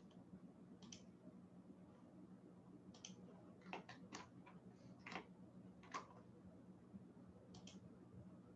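Faint, scattered clicks of a computer mouse, a dozen or so in irregular bunches, over a low steady hum.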